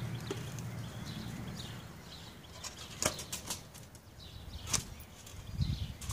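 Outdoor ambience with small birds chirping repeatedly, a few sharp clicks around the middle, and low rumbling thumps near the end.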